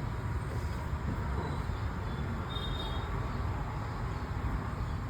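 Steady low background rumble with no distinct knocks or clicks, and a faint brief high tone about halfway through.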